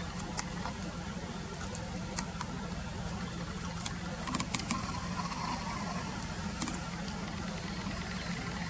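Steady low rumble of an idling engine, with a few short, high ticks scattered through, a cluster of them about four seconds in.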